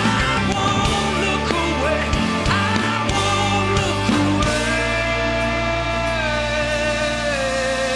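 Rock band playing live with a male lead singer: drums, bass, guitar and keyboards. From about halfway a long held note runs on, stepping down in pitch near the end.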